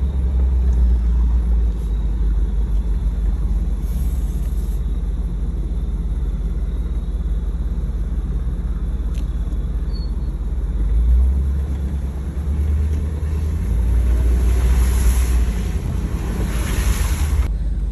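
Low, steady rumble of a vehicle driving slowly over a sandy track, heard from inside the cab. It swells twice in the second half.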